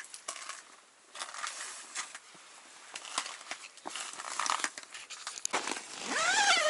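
Rustling and crinkling of heavy winter clothing and mittens as an angler pulls on his mittens and moves out of an ice-fishing tent, with scattered small clicks and a short wavering pitched sound near the end.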